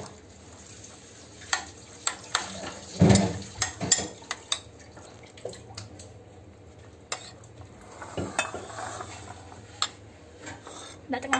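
Metal spoon stirring a thick sardine, onion and tomato-sauce mix in a ceramic bowl: wet squelching with scattered clinks and scrapes of the spoon against the bowl, loudest about three seconds in.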